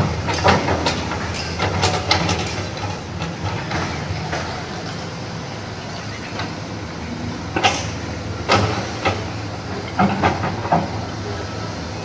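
Hydraulic excavator working on a demolition: its diesel engine runs steadily, with scattered sharp knocks and clatter of breaking debris.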